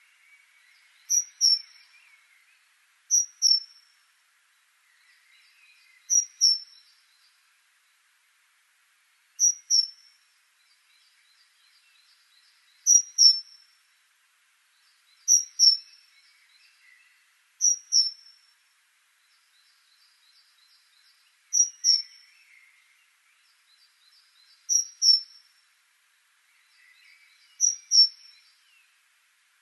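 Great tit singing a loud, high two-note phrase over and over, about ten times, roughly every two to three seconds. Faint chirping and fast ticking run underneath.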